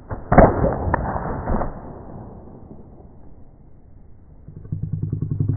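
A leather bullwhip swung and cracked: one sharp crack about a third of a second in, the loudest sound, followed by further snaps and swishing over the next second or so. Near the end a low, pulsing drone begins.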